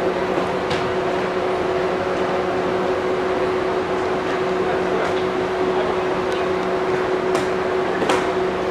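A steady mechanical hum with a constant mid-pitched tone over a noisy background, broken by a few short sharp knocks, the loudest two near the end.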